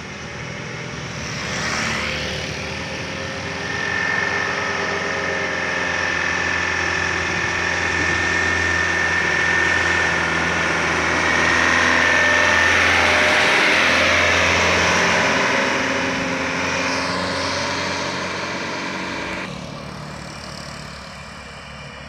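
A light truck's engine growing louder as it comes down the hill and passes, loudest a little past halfway, with a long steady high whine through the middle. A motorbike goes by about two seconds in, and the sound drops suddenly near the end.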